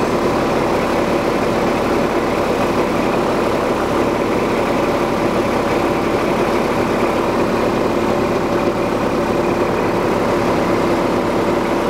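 Bucket truck's engine idling steadily, with a constant hum of steady tones over it.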